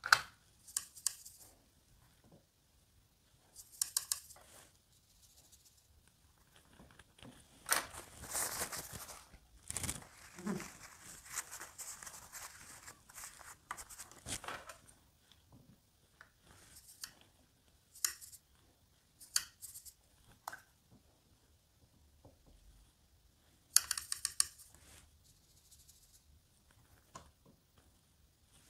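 Faint handling sounds of watercolour painting: a paintbrush scratching and tapping against the palette and paper. They come in short scratchy bursts every few seconds, with a longer stretch of brushing about a third of the way in.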